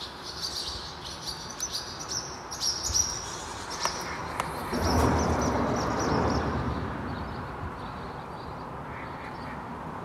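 Birds calling with short, high chirps through the first half. About halfway through, a broad rush of noise swells up and slowly fades.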